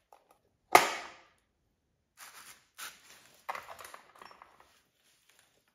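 A single sharp snap of hand tools on the engine about a second in, followed by a few softer knocks and scuffs as the breaker bars on the cam gear bolts are handled.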